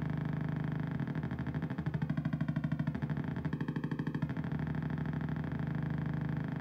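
Low buzzing drone from the LABOR DIY synth's built-in VCO, played through a small speaker as its knobs are turned. Twice, about two and three and a half seconds in, the tone breaks into a fast pulsing for under a second.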